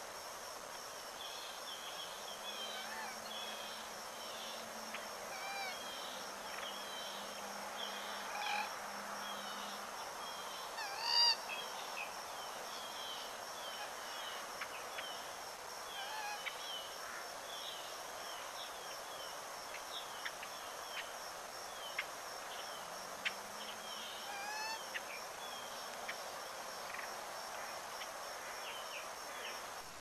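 Pond-side chorus of small birds chirping over a steady high insect trill. One louder bird call stands out about eleven seconds in, and a faint low hum comes and goes twice.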